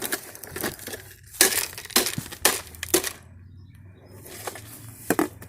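Hammer blows smashing a coffee maker's casing with crunching, breaking sounds: four hard strikes about half a second apart from about a second and a half in, then two more near the end.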